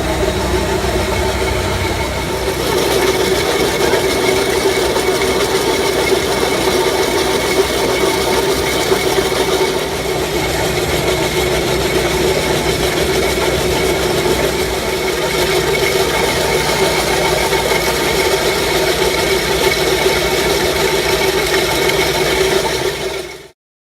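Scanmaskin 18 110-volt concrete floor grinder running steadily with Mastic Master tooling, scraping mastic adhesive off a concrete slab. Its steady drone changes slightly about two seconds in and cuts off abruptly near the end.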